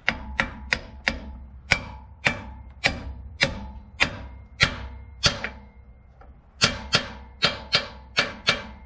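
A hammer striking a large socket used as a seal driver, about seventeen sharp blows at roughly two a second with a short pause about two-thirds of the way through, each blow leaving a brief metallic ring. This is a new rear output (tail-shaft) seal being tapped home into a Dodge Ram 1500's transmission housing.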